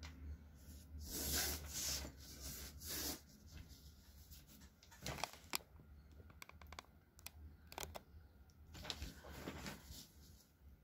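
A felt-tip marker scratching across kraft paper along a metal ruler in a few short strokes, with light clicks and paper rustle as the ruler and sheet are shifted.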